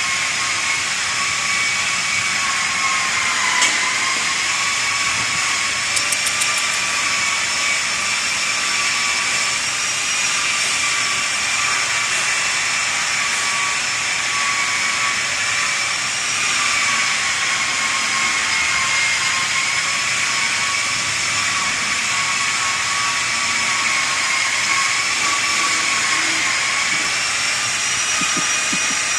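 Small motor running steadily: a high whine over an even hiss, its pitch drifting slightly up and down.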